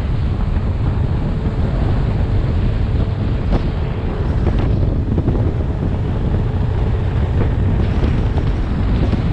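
Wind buffeting the microphone of a camera on a moving motorcycle, a steady low rush, with the Honda XRV 750 Africa Twin's V-twin engine running underneath at road speed.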